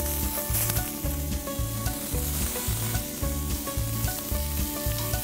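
Sausages sizzling on a hot Muurikka griddle pan coated with cooking spray, moved about with tongs. A steady music beat, about two pulses a second, runs underneath.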